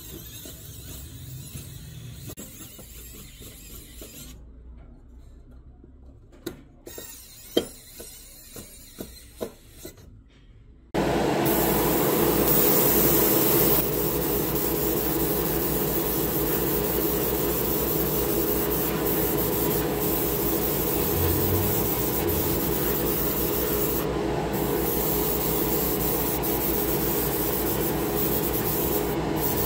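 Faint handling noise with a few sharp small clicks. Then, about eleven seconds in, a sudden change to a loud, steady hiss with a hum: the air of an airbrush painting setup running while a model car body is sprayed.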